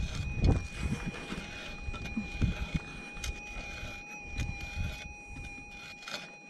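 A pick digging into hard, stony red soil: a series of dull thuds and scrapes as it chops and rakes at the ground. A steady faint high tone runs underneath.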